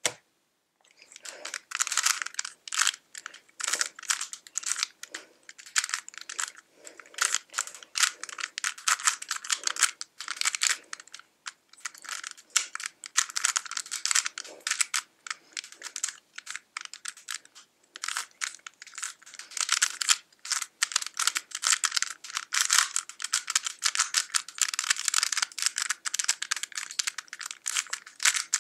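Modded Rubik's brand 3x3 cube (an edge cube with added internal pieces, lubricated) turned fast in a timed speedsolve: rapid bursts of plastic clicking and clacking as the layers turn, broken by short pauses.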